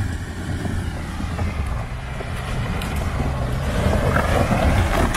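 VW Amarok 3.0 V6 diesel pickup's engine running under load on a steep climb of loose rock, with stones crunching and clicking under the tyres through the second half.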